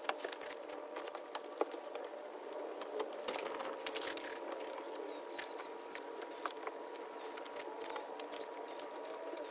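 Microfiber cloth rubbing and scraping along a car door's window channel, giving faint scattered scratches and small clicks over a faint steady hum.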